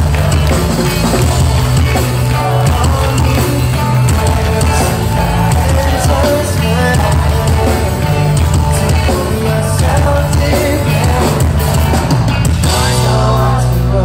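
Pop-punk band playing live: loud electric guitars, bass and drum kit with singing. The drums drop out near the end, leaving held chords.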